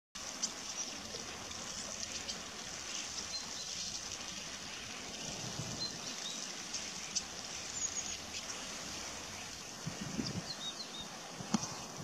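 A flock of common starlings bathing in shallow water: a steady patter of small splashes and wing-flutters, with a few short bird chirps over it.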